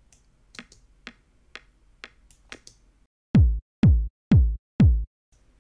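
Faint computer-mouse clicks about twice a second, then four loud drum-machine kick hits about half a second apart. The kick is a layered Roland TR-909 and TR-707 kick, and each hit is a short click falling quickly in pitch into a deep thump.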